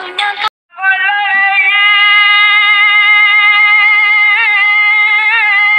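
A song plays, then cuts off sharply about half a second in. After the break the music returns as one long held note at a steady pitch, wobbling slightly now and then.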